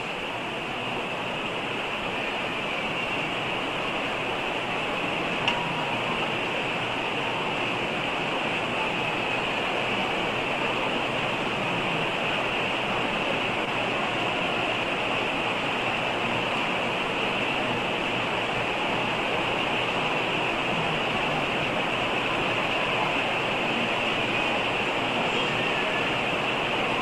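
Steady hiss of background noise with no voice, slowly getting a little louder at the start; a single faint click about five and a half seconds in.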